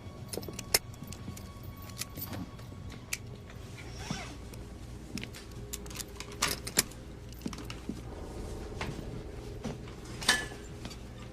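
Scattered metallic clinks and sharp knocks over a low steady hum, with faint background music. The loudest knocks come about a second in, twice around six and a half seconds, and once near ten seconds.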